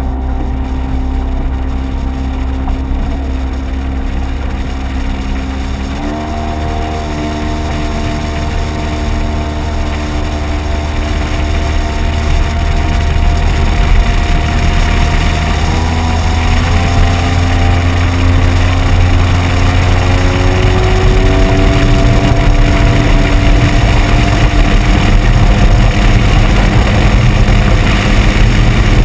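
Outboard motor driving a small boat at planing speed, with heavy wind rumble and water rush over the hull; its pitch shifts up and down in steps and the whole grows louder toward the end.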